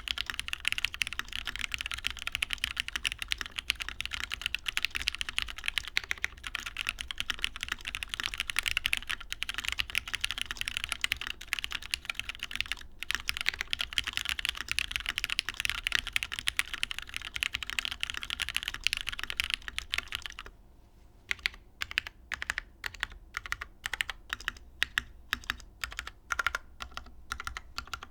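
Typing on a custom mechanical keyboard, a Daji Ocho Cuatro with lubed MX Black linear switches in a top-mounted aluminium plate and GMK keycaps. The typing is fast and continuous, then about twenty seconds in it gives way to slower, separate key presses.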